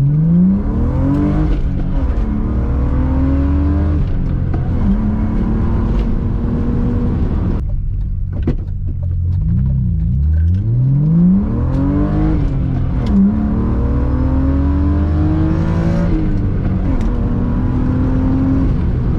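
BMW E36 M3's straight-six engine pulling hard through the gears: its pitch climbs, then drops at each upshift, several times over. A brief lull about eight seconds in is followed by another climb through the gears.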